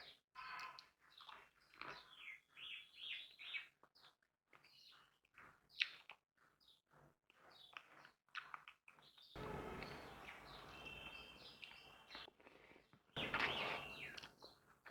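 Small birds chirping in quick, repeated calls, with two stretches of rustling noise in the second half.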